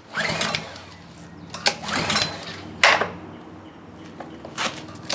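Honda GCV190 engine turned over by several quick pulls on its recoil starter cord, each a short whirring rattle, without catching: the engine has no spark.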